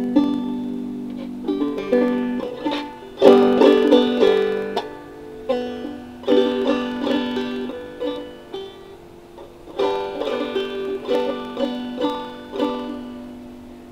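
Banjo with a Remo Weather King head being plucked and strummed, with chords and single notes that ring and die away. The playing comes in uneven bursts with short pauses: a learner picking through chords rather than playing a steady tune.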